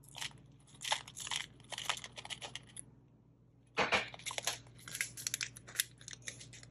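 Small plastic sequins pattering as they are poured from a plastic tray into a holographic foil zip pouch, and the foil pouch crinkling as it is handled. There is a short lull about three seconds in, then a burst of crinkling and more rustling.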